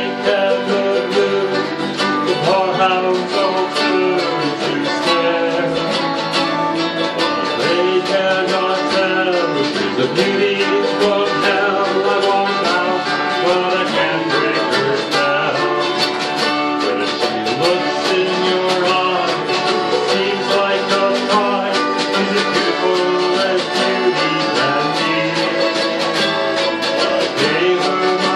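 A small band playing a country-folk song live: strummed acoustic guitar, electric guitar and autoharp, with a snare drum keeping the beat.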